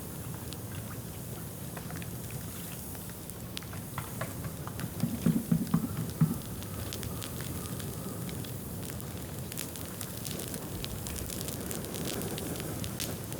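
Dry bamboo burning in an open fire, crackling with scattered sharp snaps over a steady hiss. About five seconds in comes a short run of louder, lower knocks.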